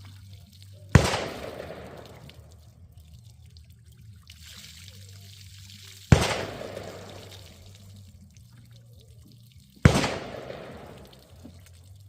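Three loud, sharp bangs about four seconds apart, each trailing off over about a second, with faint trickling water between them, as from the shot-through water jugs leaking.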